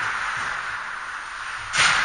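Steady hiss of an indoor ice rink, with one short, sudden burst of noise near the end from hockey play on the ice.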